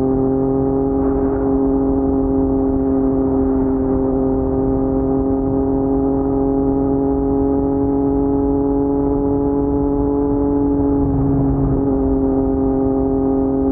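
Yamaha MT-09's crossplane inline three-cylinder engine through an Akrapovic carbon full-system exhaust, holding a steady note at nearly constant revs, with a slight change in pitch near the end.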